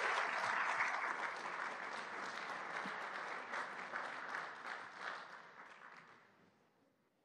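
An audience applauding, a dense patter of many hands clapping that dies away over the last two seconds.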